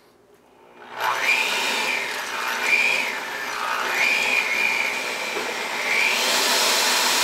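Cuisinart seven-speed electric hand mixer starting about a second in and then running steadily, its beaters churning white chocolate chips through blondie batter. Its whine dips in pitch and recovers a few times.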